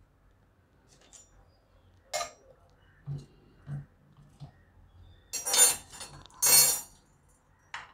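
Metal slotted spoon clinking and scraping against a pressure-cooker pot as boiled potatoes are scooped out and set in a plastic colander, with a few soft thuds. Two louder half-second rattling scrapes come about five and six and a half seconds in.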